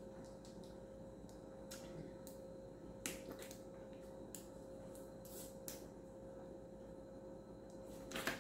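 A person drinking from a plastic water bottle: a dozen or so scattered faint clicks and crackles at irregular moments, over a steady low hum.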